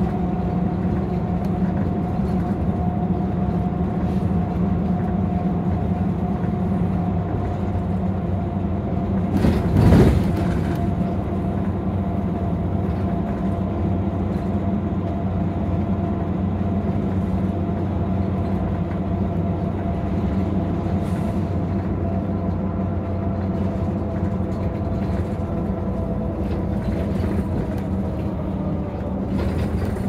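Cabin sound of a Nissan Diesel RA273MAN city bus under way: the diesel engine and drivetrain run with a steady hum, the pitch easing down near the end as the bus slows. About ten seconds in, a brief loud rush of noise stands out.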